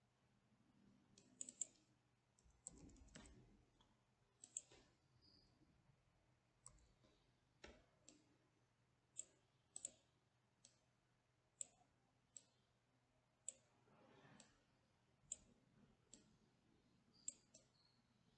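Faint computer mouse clicks, single and in quick pairs, roughly once a second, with a few soft brushing sounds between.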